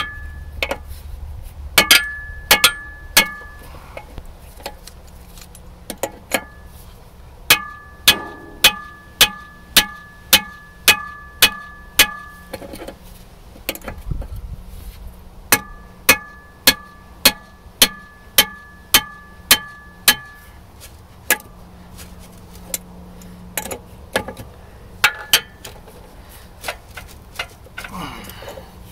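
Repeated sharp metal-on-metal strikes, each with a brief ringing note, in runs of about two a second with pauses between: blows on a crescent wrench to break loose the rusted nut on the end of an old disc harrow gang.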